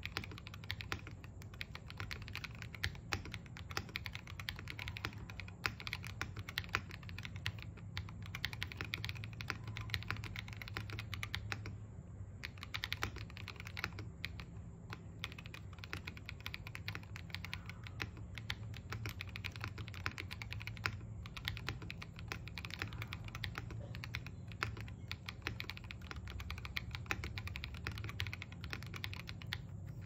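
Continuous typing on a Neo G67 Element mechanical keyboard fitted with KTT Mint linear switches and Cherry-profile keycaps: a dense run of key clacks with a brief pause about twelve seconds in.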